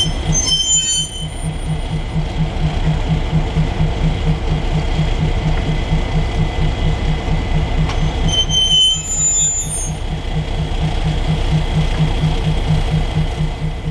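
GE 110-ton diesel-electric switcher running as it moves slowly with a coupled baggage car, its engine beating steadily about four times a second. High-pitched wheel squeal comes twice, briefly just after the start and again about 8 to 10 seconds in.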